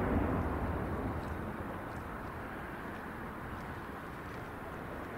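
Jet engine noise of an F-22 Raptor's twin Pratt & Whitney F119 turbofans just after takeoff, fading over the first two seconds into a steady low distant rumble.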